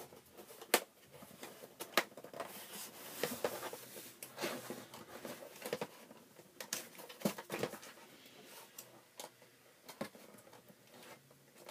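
A cardboard laptop box being handled and opened by hand: scattered knocks and taps on the cardboard with scraping of the flaps and packing tape, the sharpest knock about a second in.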